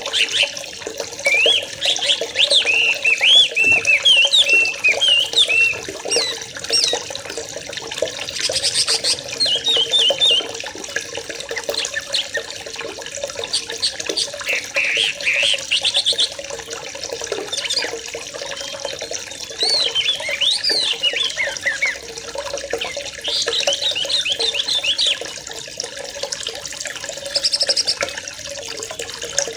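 A flock of yellow-vented bulbuls calling and chattering, many short bubbly, gliding notes overlapping in irregular bursts, over a steady sound of running water.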